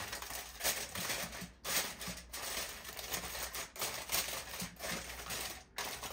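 Aluminium foil crinkling and crackling in irregular bursts as hands press and crimp it down around the edges of a metal baking pan.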